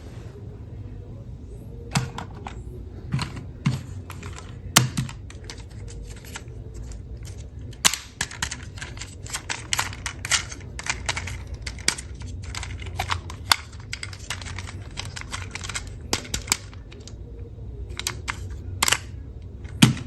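Plastic toy vehicles being handled, a string of irregular clicks and clacks, few at first and then coming quickly for most of the rest.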